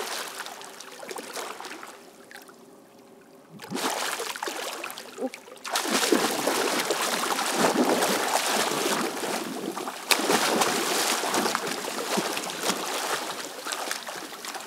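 Splashing and churning of pool water as two swimmers grapple, one breaking free of a drowning victim's grab. It is lighter for the first few seconds, then heavy splashing from about six seconds in.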